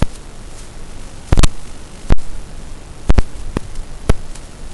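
Static hiss from an analog 5.8 GHz FPV video link's audio channel, broken by several loud, sharp pops at irregular intervals, typical of the radio signal crackling and briefly dropping out.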